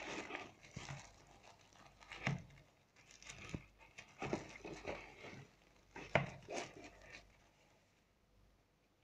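Plastic sleeve rustling and crinkling while a tablet in it is handled and lifted out of its cardboard box, with small knocks and clicks from the box. The rustling dies away near the end.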